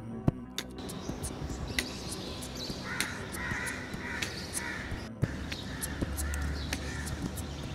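Crows cawing in runs of short, harsh calls, several in a row about three seconds in and more near the end, over outdoor background noise with scattered clicks.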